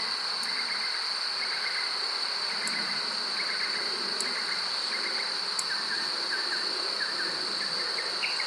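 Steady high-pitched insect drone over the buzzing of honey bees flying around the hive, with faint short chirps repeating every second or so.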